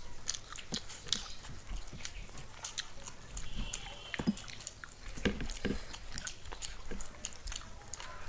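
Chewing and mouth sounds of people eating chilli chicken with fried rice: many small wet clicks and smacks.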